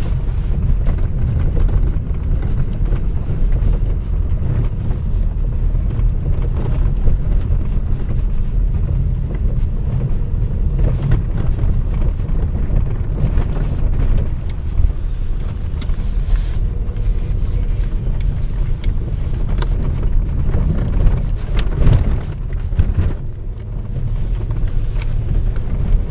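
Nissan Qashqai J10 driving over small bumps, with a steady low road rumble broken by rattling, buzzing and metal-on-metal knocks from the front suspension. The owner puts the knocking down mainly to worn anti-roll bar bushings.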